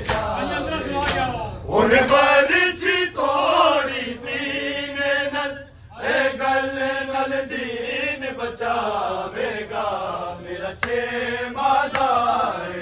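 Men's voices chanting a noha, a Shia lament, in unison, rising and falling, with sharp chest-beating slaps of matam keeping a beat about once a second.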